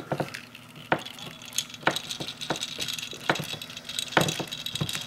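Altimites DX Voltron toy pieces clicking and knocking irregularly as a lion is forced into a tight socket in the robot figure.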